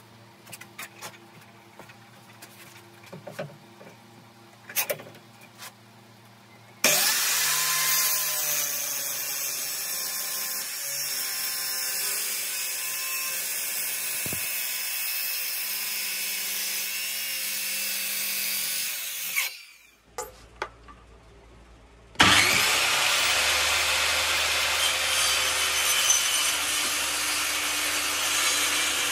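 Electric saw cutting hardwood in two passes: a few light taps and clicks, then a loud steady cut that starts abruptly, runs about twelve seconds and stops, and after a brief pause a second cut.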